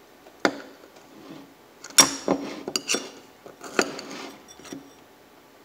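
Steel screwdriver tip and a small nut clinking against a metal parts bowl: a series of sharp metallic clinks with brief ringing, the loudest about two seconds in.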